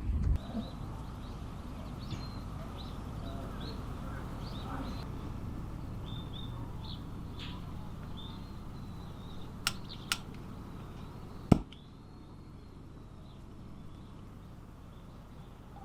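Outdoor ambience: a steady rush with scattered short bird chirps. Two light clicks come about ten seconds in, then a sharper knock, after which the background is quieter.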